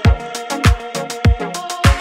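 Background music with a steady beat: a deep, booming kick drum about every 0.6 seconds (four hits), with crisp high ticks between the kicks and held chord tones underneath.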